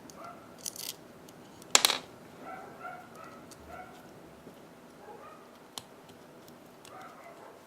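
Small metal parts and tools of a titanium folding knife clicking and clattering on a work surface during reassembly, with one louder clatter about two seconds in. A few faint short squeaks follow.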